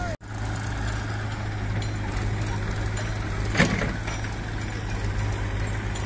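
Massey Ferguson tractor's diesel engine running steadily as it pulls a trolley loaded with mud, with one short knock about three and a half seconds in.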